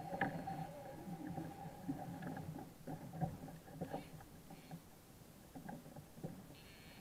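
Fishing reel's drag buzzing faintly for the first couple of seconds as a hooked fish pulls line, then scattered clicks and knocks of the rod and reel being handled on a plastic kayak.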